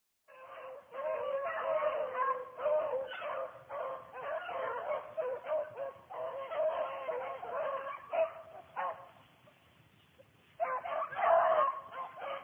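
A pack of beagles baying and yelping almost without a break as they run a rabbit through cover. The dogs fall quiet for about a second and a half near the end, then start up again.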